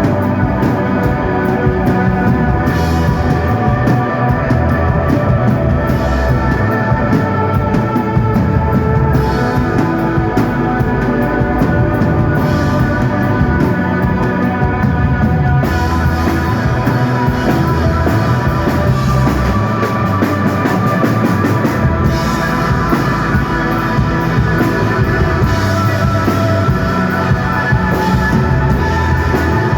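Instrumental rock band playing live at a steady, loud level: electric guitar holding long notes over bass and a drum kit with cymbals.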